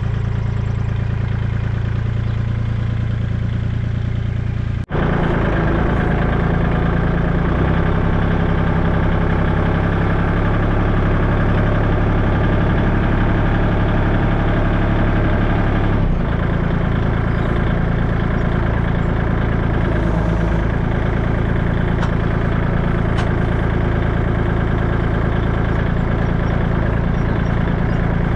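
Kubota L2501 tractor's three-cylinder diesel engine running steadily while the front loader works. The sound cuts out briefly about five seconds in, then comes back louder and closer.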